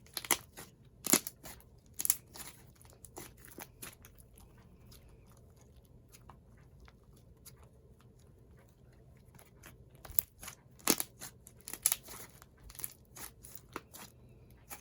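Soft slime with clay mixed in being squished and poked by hand, making sticky clicks and pops in two spells, near the start and again from about ten seconds in, with a quieter stretch between.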